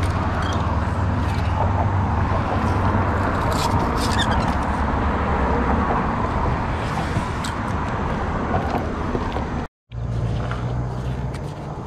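Steady rumble of road traffic passing on the bridge, with a few sharp clicks and clanks over it.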